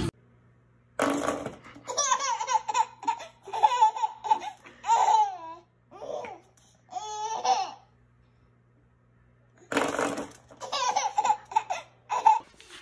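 Baby laughing and squealing, high-pitched, in two spells with a pause of about two seconds between them; each spell opens with a short noisy burst.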